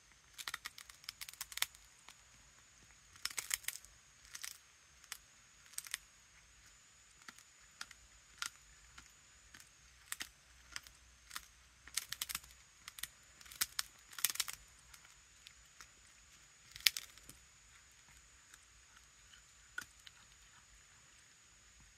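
A cat crunching and chewing on a cooked chicken wing: sharp, crisp crunches in irregular clusters with quieter stretches between, the loudest a single crunch about three-quarters of the way through.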